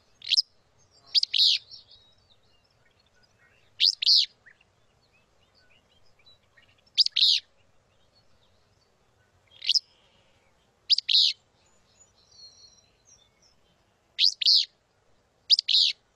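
Recorded southwestern willow flycatcher song: about eight short, sharp, high phrases, repeated every second or three.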